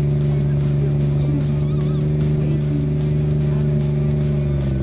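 Nissan GT-R GT3 race car's twin-turbo V6 running at steady raised revs, an even, unwavering engine note.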